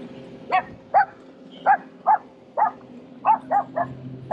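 An animal, likely a dog, gives about eight short, high yelps in quick succession, roughly two a second, each rising and falling slightly in pitch.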